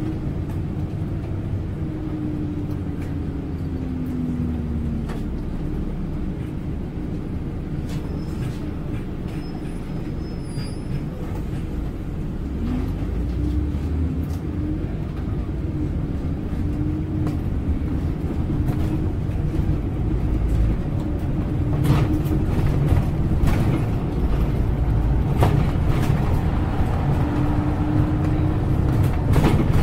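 Scania Citywide city bus heard from inside: the engine and drivetrain rumble steadily, growing louder from about halfway through as the bus picks up speed, with short knocks and rattles from the body in the second half.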